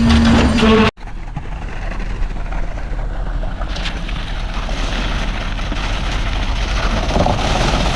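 Music with a held note cuts off abruptly about a second in, followed by a steady noisy rumble with no clear tone that lasts to the end.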